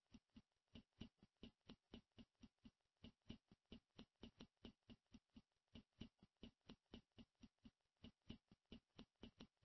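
Near silence with faint, even ticking, about five clicks a second.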